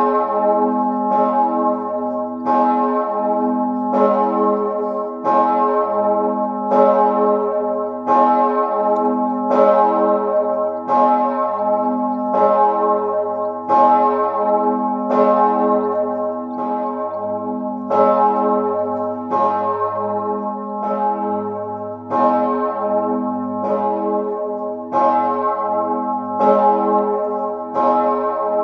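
The great bell Mauritius, a 4,820 kg bell in A-flat cast by Perner of Passau in 2003, swinging and ringing alone for the Sterbestundenläuten (death-hour toll). Its clapper strikes about once every one and a half seconds, and each stroke's deep hum carries on into the next.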